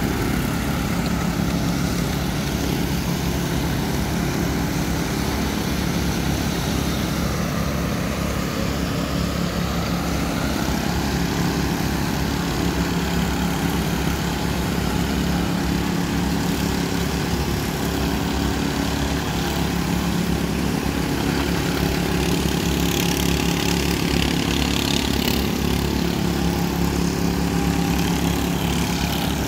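Small engines of walk-behind power trowels (concrete helicopters) running steadily as their blades float a fresh concrete slab. Several machines drone together at an even level.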